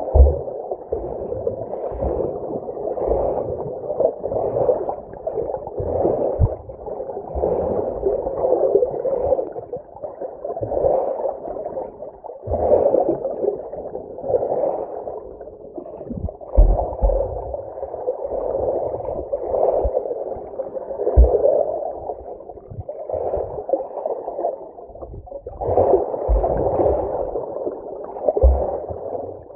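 Muffled underwater sound from a submerged camera: water swishing and sloshing in a swell that rises and falls about every second or two, with a few dull low thumps.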